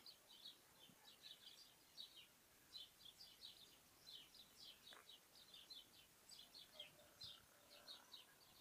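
Faint chirping of small birds: many short, high calls in quick, irregular runs, against a quiet background.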